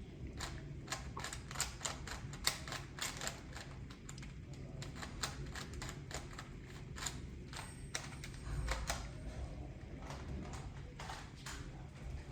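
Rapid, irregular clicking and tapping, a few clicks a second, over a steady low hum.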